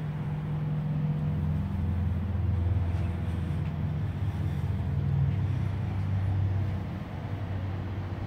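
Low engine rumble of a motor vehicle, its pitch dropping about two seconds in and easing off near the end.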